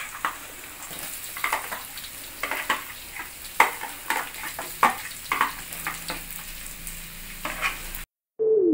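Sliced onion and minced garlic sizzling in oil in a wok, with a metal spatula scraping and tapping many times against the wok and a plastic container as the onion is pushed in. The sound cuts off suddenly near the end.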